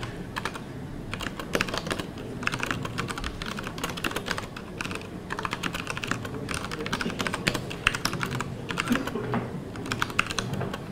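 Typing on a MacBook Pro laptop keyboard: quick runs of key clicks in short bursts, with brief pauses between them.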